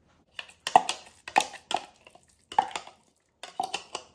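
Chopped sun-dried tomatoes being emptied from a plastic pull-chopper bowl into a crock pot insert: a string of sharp knocks and scrapes as the bowl is tapped and scraped against the pot.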